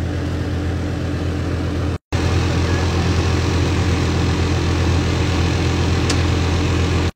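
Steady low hum with an even hiss over it from the stovetop and the simmering pan, broken by a brief dropout about two seconds in.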